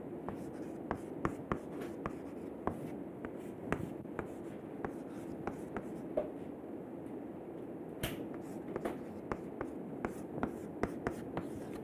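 Chalk writing on a chalkboard: irregular sharp taps and short scratching strokes as an equation is written, over a steady low background hum.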